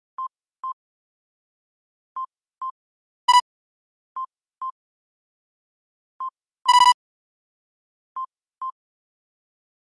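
Alert beeps from an earthquake early-warning monitor: a pair of short high beeps repeating every two seconds, with two louder, buzzier beeps about a third and two-thirds of the way through.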